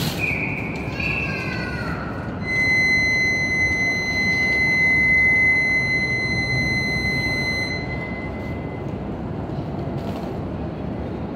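A steady high-pitched signal tone held for about five seconds on a Shinkansen platform, with a short wavering tone just before it, as a departure warning. A faint steady platform hum lies beneath.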